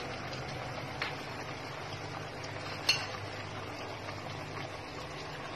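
Two light clinks against a metal cooking pot, one about a second in and a louder one near three seconds in, over a steady low hiss and hum.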